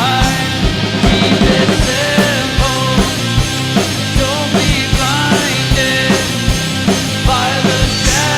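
A loud rock band playing live: a drum kit keeps a steady kick beat under distorted electric instruments, and a lead line slides and bends in pitch.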